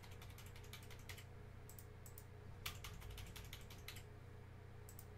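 Typing on a computer keyboard: three short runs of quick keystrokes, the last and longest from about two and a half to four seconds in, over a faint steady low hum.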